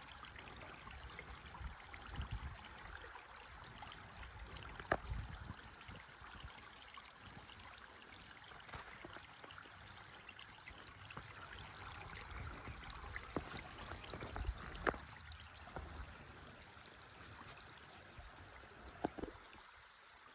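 Rain-fed desert creek running: a faint, steady rush of flowing water, with a few sharp clicks scattered through it, the loudest about a quarter of the way in and again about three quarters of the way in.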